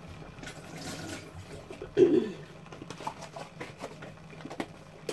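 Light clicks and knocks of a plastic container and kitchen items being handled and set down on a counter, with one short, louder falling-pitched sound about two seconds in.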